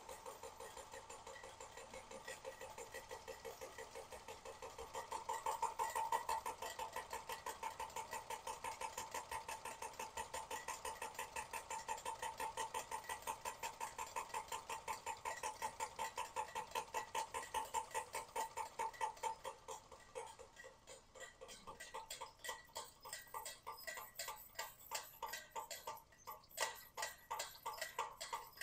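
Weeden No. 670 electric toy steam engine running, with a fast, even ticking chuff from the engine and its belt-driven toy accessories turning. About two-thirds through, the rhythm turns into sparser, more separate clicks.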